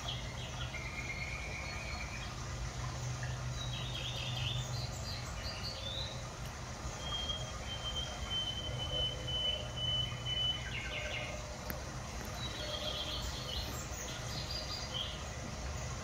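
Small birds chirping and calling in short high notes, with one thin whistle held for a few seconds in the middle, over a steady low hum.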